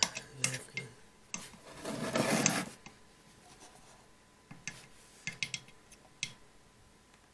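A metal paint can slid across a wooden workbench, a rough scraping rub lasting about a second and a half, followed later by a few light clicks from a small plastic bottle being handled.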